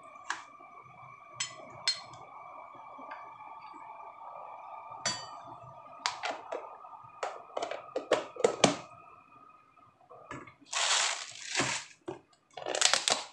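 A metal spoon clicking and clinking against ceramic bowls and a plastic container as raw minced pork is spooned out, a quick run of sharp taps in the middle. A faint steady whine runs under the first half, and two louder bursts of rustling hiss come near the end.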